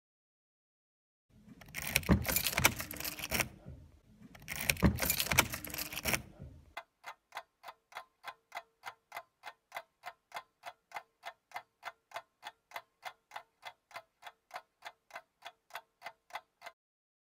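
Two loud bursts of rushing noise, each a couple of seconds long, followed by a long run of steady, evenly spaced ticking of the clock kind, which stops shortly before the end.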